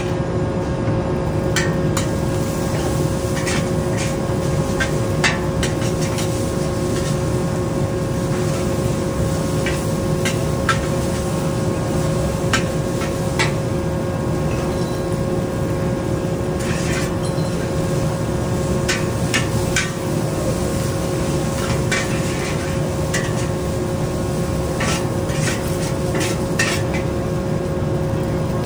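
Metal ladle knocking and scraping against a large wok as fried Hokkien mee noodles are stirred and tossed, in irregular clanks over a steady kitchen hum.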